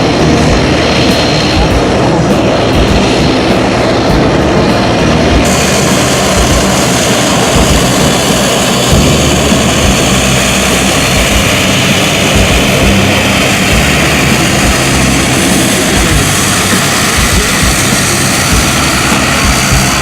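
Aircraft engine noise from an air-show flypast, loud and steady throughout, with a hiss that suddenly brightens about five seconds in.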